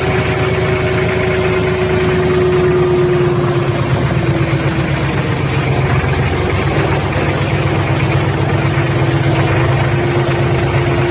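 A vehicle engine running steadily close by, with a rapid low pulsing and a faint whine that dips slightly in pitch midway.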